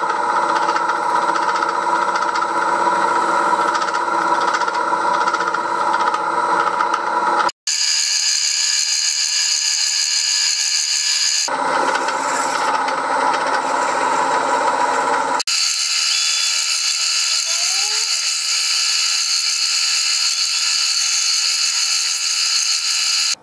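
Milling machine, a 1938 Bridgeport M-head, drilling bolt and dowel holes in metal cylinder blocks: a steady running whine with the drill cutting. The sound changes abruptly about 7, 11 and 15 seconds in, as one drilling clip gives way to the next.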